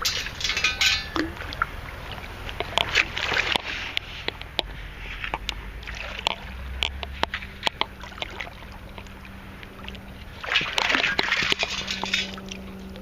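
A long-handled sand scoop digging into wet sand and shaking it out in three rounds, with sloshing water and the rattle and clicks of grit and small stones.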